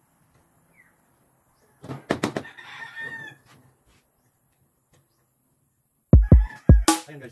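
A rooster crows once, about two seconds in, over a few sharp clicks. Near the end, electronic background music starts with heavy bass kicks.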